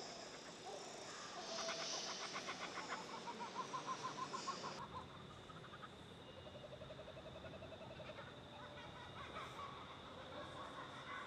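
Bush soundscape of animal calls: a rapid, even trill starts about a second in and cuts off abruptly just before the halfway point, followed by a softer, lower pulsing trill.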